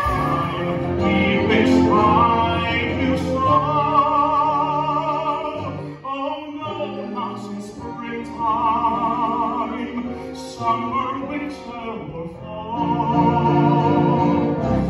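Musical-theatre singing with orchestra: a classically trained voice holding long notes with wide vibrato over the accompaniment, the music thinning out briefly about six seconds in.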